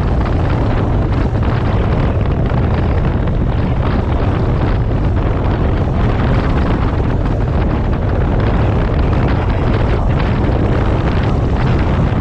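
Triumph 900cc motorcycle engine running steadily while riding along, mixed with wind rush on the microphone.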